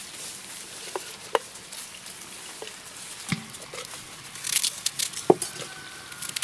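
A knife cutting slices off a fresh apple, with crisp crunching cuts about four and a half seconds in, among a few short light knocks of kitchenware.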